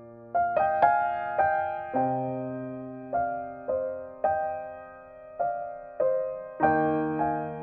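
Background music: slow, gentle solo piano, single notes and a few chords struck one at a time and left to ring out.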